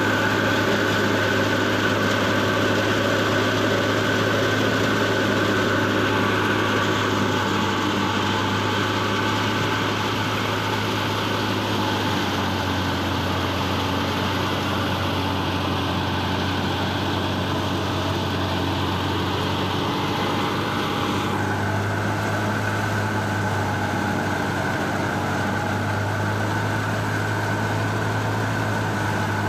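Tractor-driven wheat thresher running steadily under load, powered by the NH Dabung tractor: a constant low engine hum under the steady mechanical noise of the threshing drum and blower. The higher part of the noise drops a little about two-thirds of the way through.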